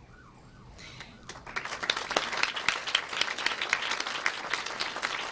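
Audience applause starting about a second and a half in and continuing steadily. Before it, a faint wavering siren is heard for the first second.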